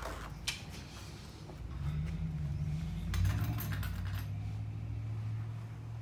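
A leather tool roll being unrolled and smoothed out on a glass counter: soft scuffs and rustling of the leather. A low steady hum comes in about two seconds in and holds under it.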